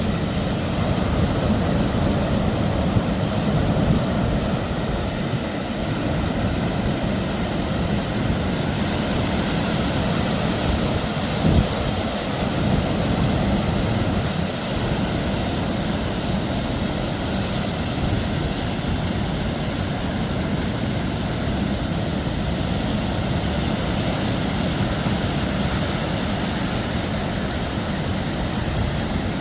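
Steady rushing noise of wind and ocean surf, with wind buffeting the microphone. One short thump about eleven seconds in.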